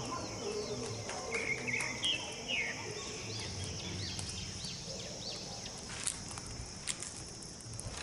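Steady high-pitched insect chorus with several short bird chirps, mostly in the first few seconds, and a few sharp clicks a little past halfway.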